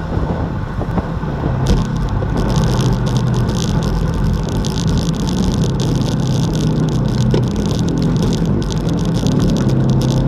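Wind rushing over a bike-mounted action camera's microphone, with tyre and road noise from a road bike riding in a group at speed. It is a steady low rumble with a fluttering hiss above it that grows stronger about two seconds in.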